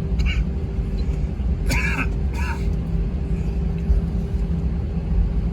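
Steady low rumble of a jet airliner heard from inside the cabin, with a steady hum over it. A few brief voice-like sounds break in near the start and about two seconds in.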